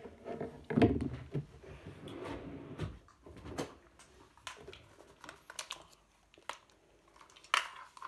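Scattered clicks, knocks and rustles of hair straighteners and their cord being fetched and handled, with a louder thump about a second in.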